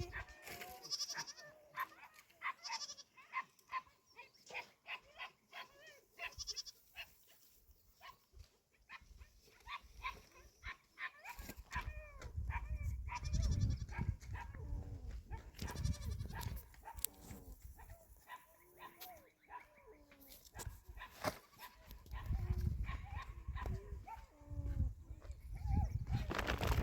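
Goats bleating, many short calls one after another in the first half, with bursts of low rumbling noise later on.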